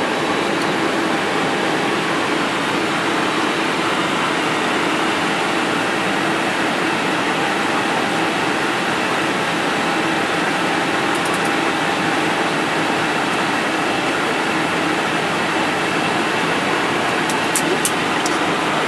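Steady cockpit noise of an Airbus A319 lining up on the runway: the engines at low power under a constant hiss of air-conditioning and equipment fans. A few quick switch clicks from the overhead panel come near the end.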